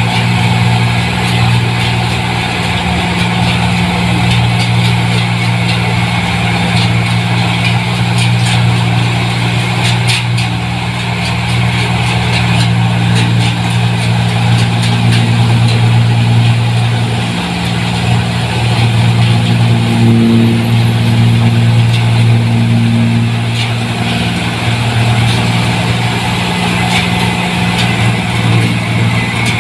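New Holland 1545 combine harvesters running steadily while cutting and threshing rice: a loud, even engine and machinery hum, the nearer combine dominating.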